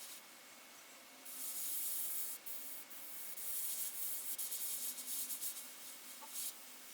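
Airbrush spraying paint in on-and-off bursts of hissing air, starting about a second in and stopping near the end.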